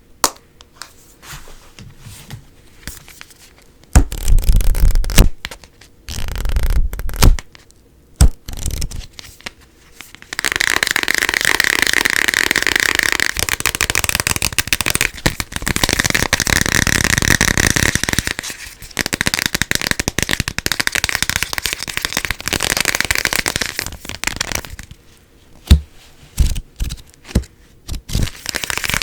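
Tapping and scratching on assorted objects. The first part is scattered taps and a few louder short bursts. From about ten seconds in comes a long run of fast, dense scratching, then more separate taps, and the scratching starts again near the end.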